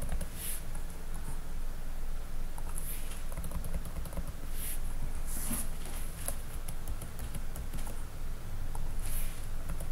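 A few scattered clicks of a computer mouse and keyboard over a steady low hum.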